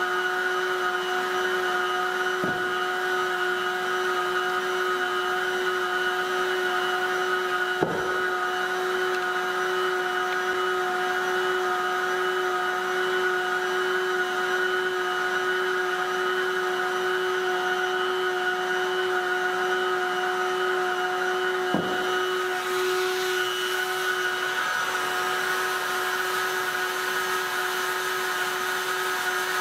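Electric heat gun running steadily, its fan giving a constant whirring hum with a hiss of blown air as it heats the plastic part to soften it. A few light taps from handling the part come in now and then.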